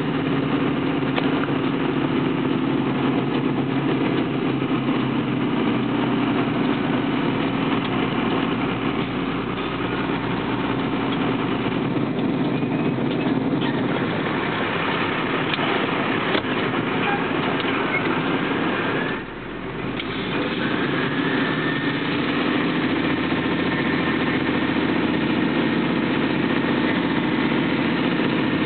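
Engine of a large vehicle running as it drives, heard from inside the cab: a steady drone that drops away briefly about two-thirds of the way through, then builds again with a slowly rising note.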